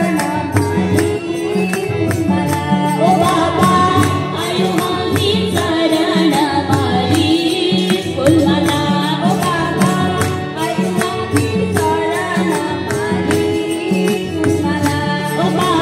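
Devotional song (bhajan) sung by women into microphones over a public-address system, accompanied by a harmonium's sustained chords and percussion keeping a steady beat.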